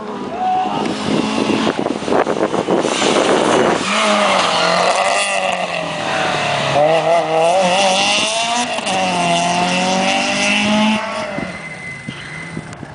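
Rally car engine revving hard and passing at speed, its pitch climbing and dropping repeatedly as the driver works the throttle and gears, fading away near the end.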